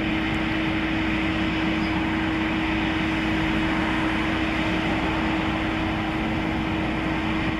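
Steady mechanical hum: a constant low tone over an even rushing noise, unchanging throughout.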